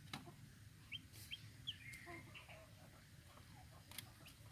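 Two- to three-day-old broiler chicks peeping faintly: a handful of short, rising peeps, most of them between one and two seconds in, with a few soft clicks.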